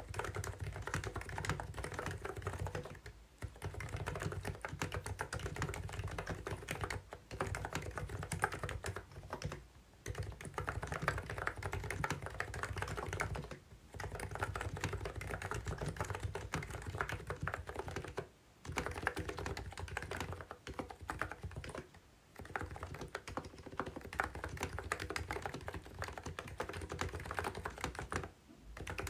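Fast typing on a COX CNK84W electro-capacitive (non-contact) keyboard: a dense run of keystrokes, with short pauses every few seconds.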